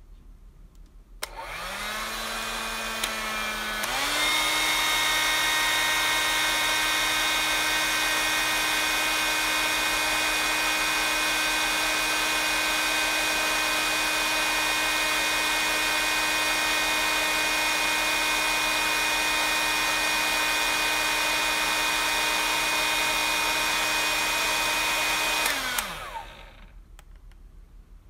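Panasonic hair dryer switched on with a click about a second in, running on a low setting and then stepped up to a louder, higher-pitched setting about four seconds in. It runs with a steady whine and rush of air, then clicks off near the end, its whine falling as the motor spins down.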